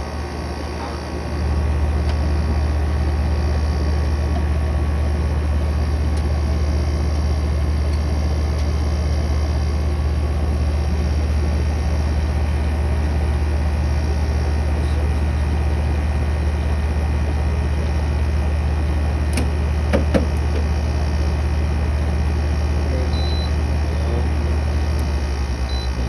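Window air conditioner's Rechi compressor kicking on about a second and a half in, then running with a loud, steady low hum over the fan. A single short click comes about two-thirds of the way through.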